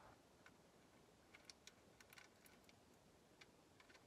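Faint, scattered small metallic clicks and ticks of a bolt, lock washer and nut being handled and fitted by hand on a steel mounting bracket.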